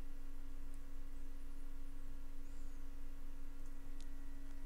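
A steady hum: one constant mid-pitched tone with a few fainter higher tones above it, over a low background hiss.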